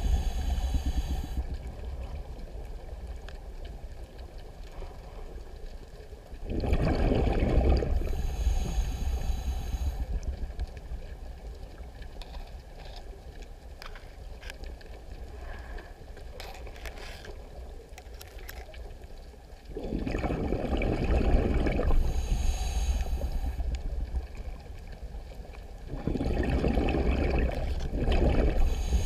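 Scuba diver breathing through a regulator underwater: about four exhales, each a loud burst of bubbles lasting a few seconds, ending in the hiss of the next inhale through the regulator. Between breaths there is a low steady underwater rumble.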